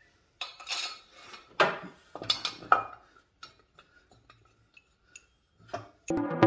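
A cast-metal alternator bracket and its bolts clanking and scraping against the engine front as it is fitted by hand: a cluster of knocks in the first three seconds, then a few light ticks. Electronic music starts just before the end.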